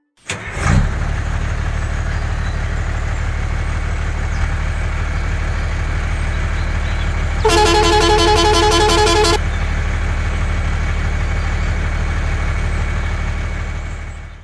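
Truck engine running steadily, with a horn sounding for about two seconds midway. The engine starts abruptly just after the opening and cuts off suddenly at the end.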